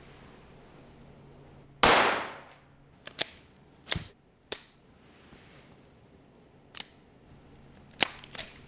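A suppressed shot from a 3D-printed Glock-style pistol about two seconds in, followed by several sharp metallic clicks and clacks as the slide is racked by hand and the trigger drops. The suppressor keeps the slide from cycling, so the pistol misfires and has to be racked between shots.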